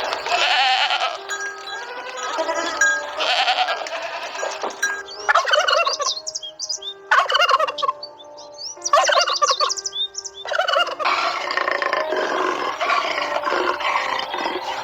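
Bird calls in repeated short bursts, merging into a longer run near the end, over background music with a slow stepping melody.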